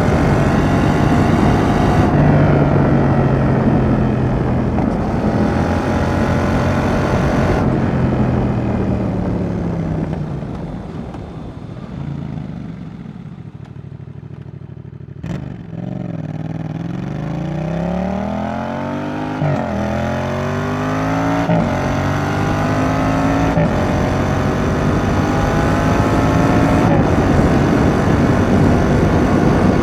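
Yamaha XSR700's CP2 parallel-twin engine through a Roadsitalia Double Fire aftermarket exhaust, with wind rushing past. The revs fall away as the bike slows, with a sharp click about halfway. It then accelerates with rising revs and shifts up twice, and settles into a steady cruise for the last third.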